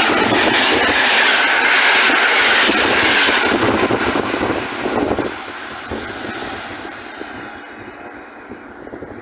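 The last coaches of an Intercity passenger train pass close by, their wheels clicking over the rail joints. About five seconds in the last coach goes by and the noise falls away, fading as the train draws off into the distance.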